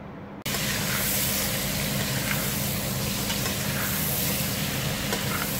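Sliced leeks and carrots sizzling in hot olive oil in a stainless steel pot as they are stirred: a steady hiss that starts suddenly about half a second in.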